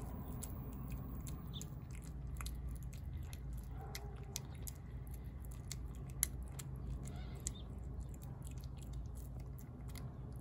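A tabby cat eating chicken pâté wet food from a dish, chewing steadily with many small sharp clicks.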